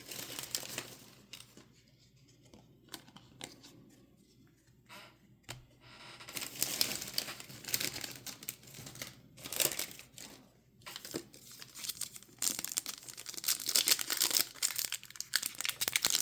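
Foil wrapper of a trading card pack being handled, torn open and crinkled. There are a few faint clicks and rustles at first, then bursts of tearing and crinkling from about six seconds in.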